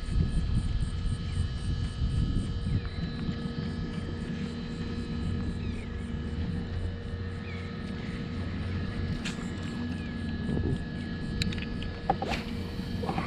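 Wind buffeting the microphone in an uneven low rumble, under a steady thin whine, with a few sharp clicks near the end.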